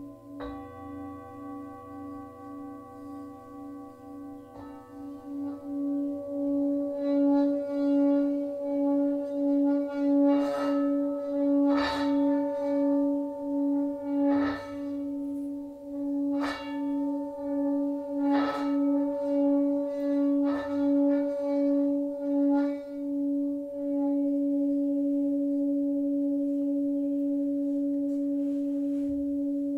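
Tibetan singing bowls: a low bowl holds a sustained hum with a regular wavering pulse, and higher bowls are struck one after another, about every two seconds through the middle, each strike ringing on. Near the end the wavering settles into a steady hum.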